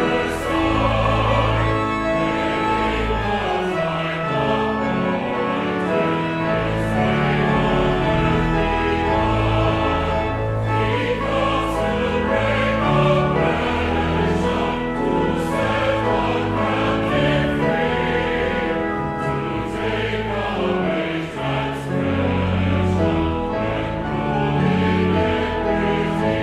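Mixed church choir of men's and women's voices singing a hymn, with long low accompanying notes held beneath the voices.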